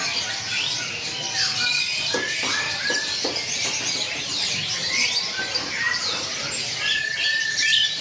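Many small birds chirping and whistling at once: a dense tangle of overlapping high calls, sweeping whistles and short level whistle notes, with no single bird standing out.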